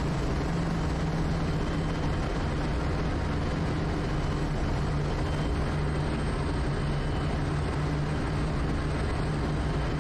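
Quest Kodiak's single Pratt & Whitney PT6A turboprop engine and propeller droning steadily, heard from inside the cockpit on final approach.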